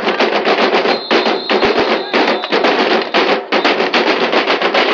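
A group of drummers playing hand-held drums together in a fast, dense, loud beat, with brief breaks between phrases.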